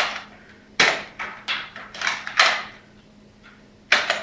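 Toy gun's mechanism clicking: about six sharp clicks in the first two and a half seconds, then one more near the end.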